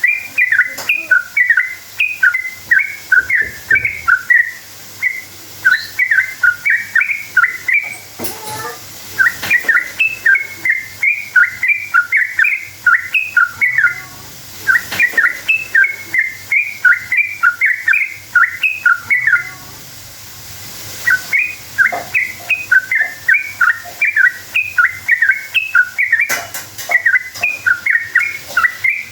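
Yellow-vented bulbul (trucukan) singing long runs of fast, bubbly chirping notes, with a few short pauses between runs.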